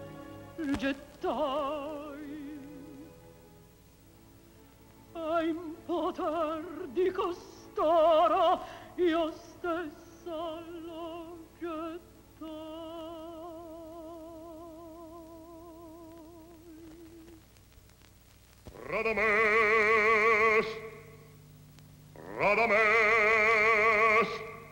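Operatic mezzo-soprano singing in Italian with a wide vibrato over a soft orchestral accompaniment: short declaimed phrases, then a long held line, and near the end two loud sustained high notes.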